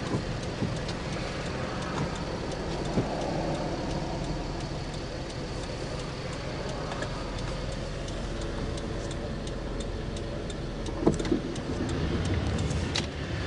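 A car running steadily: engine hum and road noise, with a few light clicks, the clearest near the end.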